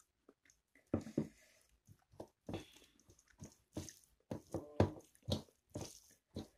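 Close-miked eating sounds: chewing and wet mouth smacks as a mouthful of rice and chicken curry is eaten, with squishing as fingers mix rice on a metal plate. The sounds come as an irregular run of short clicks and smacks.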